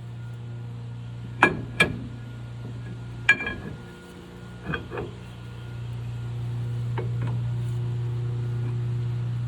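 Sharp metal-on-metal clinks as a steel axle shaft is slid through a GM 10-bolt rear axle tube toward the differential: three loud clinks in the first few seconds, then three fainter ones. A steady low hum runs underneath and grows louder after about six seconds.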